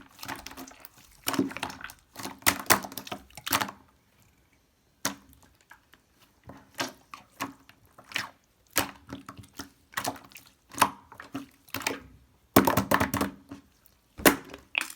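Slime being squished and pressed by hand: irregular runs of sticky clicks, with a pause of about a second around four seconds in.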